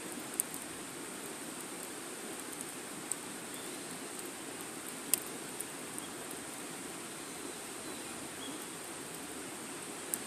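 Wood fire burning with a steady hiss and scattered sharp crackling pops, about half a dozen, the loudest about five seconds in.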